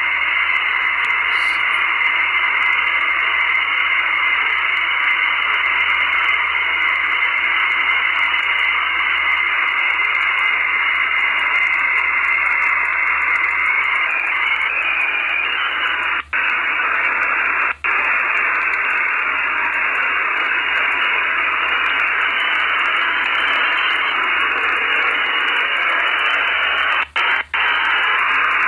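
Radio receiver hiss between stations while scanning frequencies: a steady, narrow-band static with a constant whistle tone that stops about halfway through. The hiss cuts out for a split second twice just past halfway and twice more near the end.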